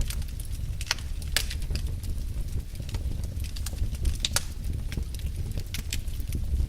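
Fire burning in a fireplace: a steady low rumble with scattered sharp crackles and pops, the loudest about a second in and just past four seconds.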